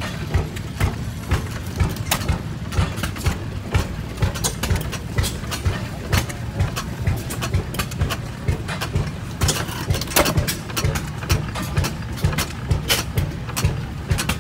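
Several antique hit-and-miss gas engines running together, their exhaust pops coming at uneven spacing, a few each second, over a low rumble.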